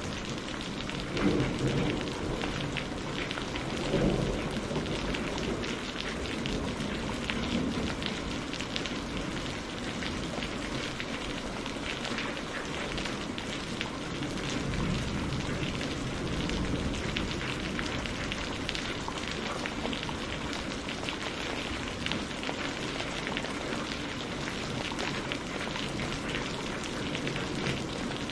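Steady heavy rain with low rumbles of thunder. There are two short, louder cracks, about one and four seconds in.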